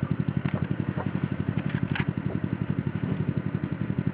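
A machine running steadily with a rapid low pulse, about ten beats a second, with a few light clicks on top.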